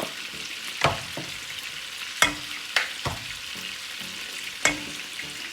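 Steady sizzling of food cooking in hot butter, broken by about five sharp clinks of a spoon against the pan, the loudest a little after two seconds in.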